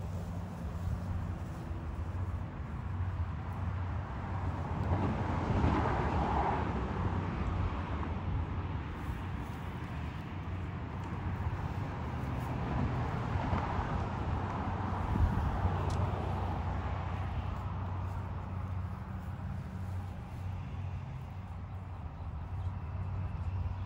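Outdoor traffic noise: a steady low hum with a wash of passing vehicles that swells and fades twice, about six and fourteen seconds in.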